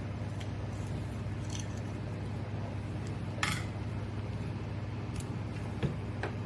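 Small metal carburetor parts and hand tools clicking and clinking now and then during a carburetor teardown, the sharpest click about three and a half seconds in and a few lighter ones near the end, over a steady low hum.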